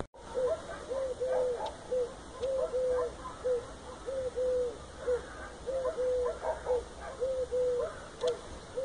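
An animal calling over and over in short, clear notes of the same pitch, about two a second, every third or so held a little longer.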